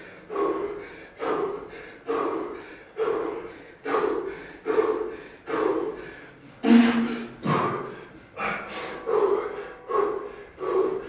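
Hard, rhythmic breathing of people under heavy physical strain: a forceful exhale roughly every second, with a louder strained grunt about two-thirds of the way through.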